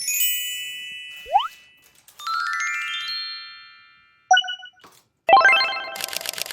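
A string of cartoon-style novelty sound effects: a bright ringing chime, a quick upward whistle-like swoop, a rising run of bell-like notes, a short bubbly blip, then a jangling rattle that breaks into rapid ticking.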